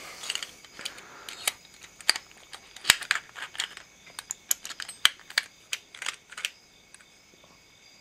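A door knob's metal halves and spindle clicking and tapping against each other as they are handled and fitted together: a run of irregular sharp clicks, dense for about the first six seconds, then sparse.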